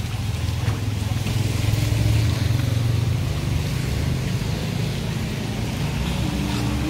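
A motor vehicle's engine runs close by as a steady low hum, loudest about two seconds in, over the hiss of heavy rain.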